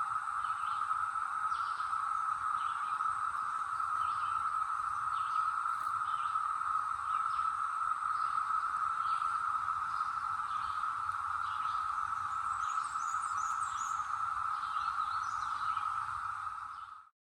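Brood X periodical cicadas in a steady, unbroken chorus, a dense high drone, with scattered short bird chirps above it. The sound cuts off near the end.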